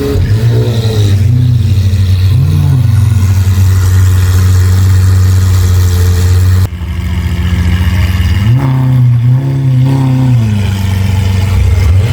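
Supercar engine being revved: several quick throttle blips, the note held steady for a few seconds, then after an abrupt cut another series of revs rising and falling.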